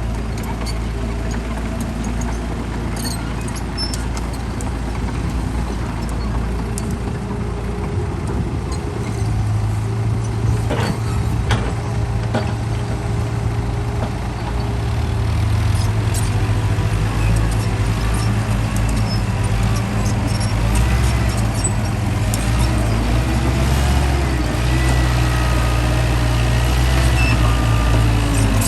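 Heavy diesel engine running steadily, growing louder and deeper about halfway through, with scattered faint clicks.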